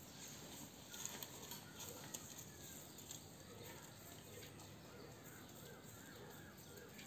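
Faint clicks of fingernails pinching and drawing nits along strands of wet hair, a few sharp ones about a second in. In the second half a faint wavering call, like a bird's, repeats in the background.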